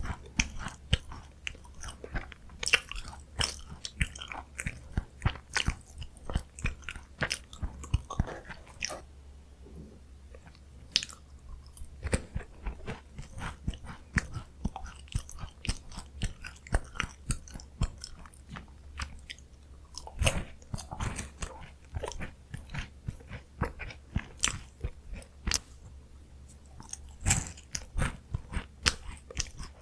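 Close-miked crunching and chewing of crisp Korean chocolate biscuit snacks: bursts of sharp crackly bites and chews, with a couple of quieter pauses between mouthfuls.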